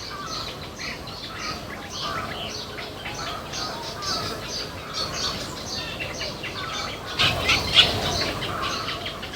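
Many small birds chirping and squawking in quick, overlapping short calls, with a louder, noisier flurry about seven seconds in.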